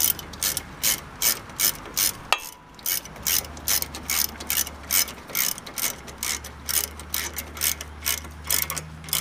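Socket ratchet clicking in short bursts, about three a second with a brief pause a little over two seconds in, as it tightens the brake hose bolt on a rear brake caliper, drawing its copper sealing washers tight.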